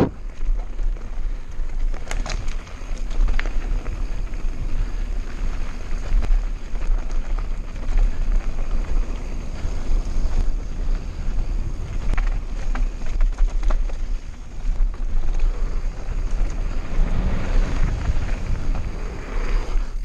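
Mountain bike riding fast down a dirt trail: wind buffeting the bike-mounted camera's microphone over the rolling noise of knobby tyres on dirt and loose gravel, with scattered clicks and rattles from the bike.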